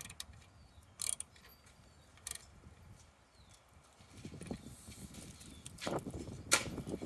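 Hand tools on metal: a few separate sharp clicks and clinks as a socket is worked on the ignition coil's mounting nuts, with a soft rustle of handling in the second half.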